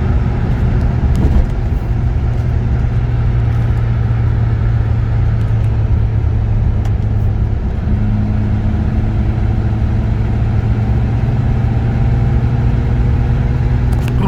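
A car driving along, its engine running steadily under load with constant road and engine drone; about eight seconds in a higher steady tone joins. The engine hesitates, which the driver takes for a misfire.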